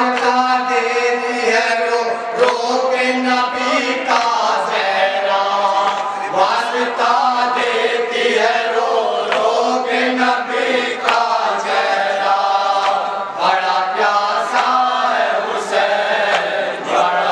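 Several men chanting a noha, a Shia lament for Husain, together into amplified microphones in a steady, continuous recitation.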